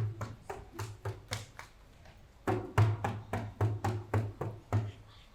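Music with a rhythmic percussion beat: sharp drum hits with a deep thump, about four a second, stopping for about a second midway and then resuming.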